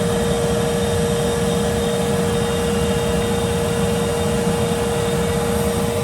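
Gas-fired foundry furnace running: a steady roar of the burner blown by a vacuum, with a steady hum at one pitch.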